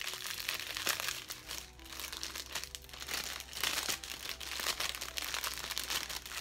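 Thin clear plastic packaging bag crinkling as it is pulled open and handled, a continuous run of irregular crackles and rustles.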